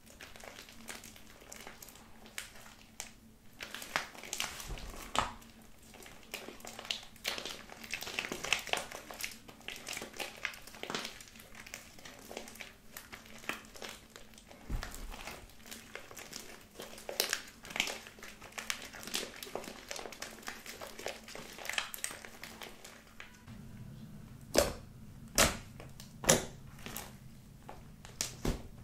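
Sticky pink body-lotion slime being stretched, folded and squished by hands, with a dense wet crackling and clicking. Near the end the slime gives a few louder single pops as it is pressed flat.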